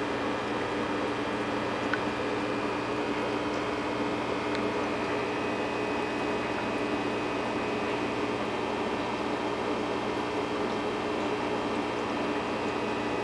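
Steady hum and hiss of an aquarium air pump running a sponge filter, with a faint bubbling wash; one small click about two seconds in.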